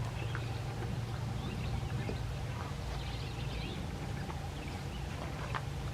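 Quiet outdoor background: a steady low rumble with faint bird chirps about three seconds in and a faint click near the end. No gunshot.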